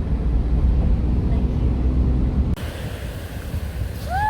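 Low rumble of a car driving, which cuts off sharply about two-thirds of the way in. A steady hiss of surf and wind follows, with one short rising-and-falling call near the end.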